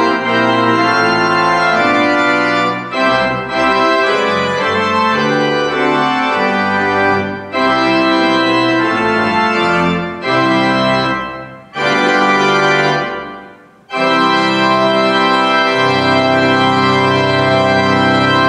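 Church pipe organ playing sustained chords in phrases separated by short breaks, ending on a long held chord.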